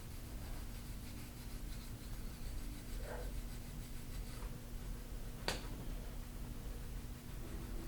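Soft-tissue massage on a patient's back: faint rubbing and scraping of hands or a tool over skin. One sharp click about five and a half seconds in.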